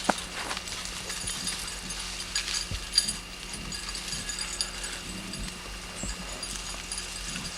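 Footsteps and scattered crackling and snapping of dry brush as hunters and a bird dog move through thick cover, with a sharp snap just after the start and another about three seconds in.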